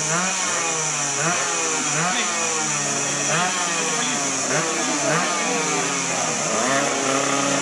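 A racing engine being revved over and over, its pitch climbing and dropping roughly once a second.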